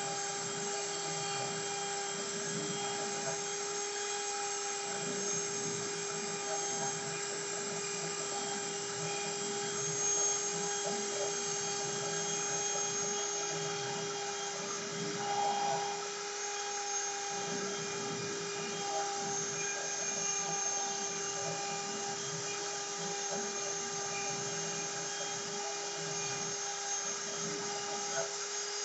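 CNC router running, its spindle motor giving a steady whine at an unchanging pitch over an uneven low rumble, typical of the machine cutting a wooden sign.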